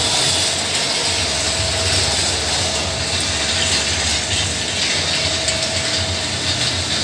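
Automatic packing machine for shisha charcoal briquettes running: a steady mechanical clatter with a hiss and a faint constant whine.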